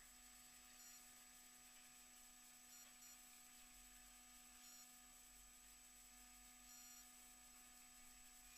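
Near silence: only a faint steady electrical hum and hiss from the recording electronics, with faint short high blips every couple of seconds.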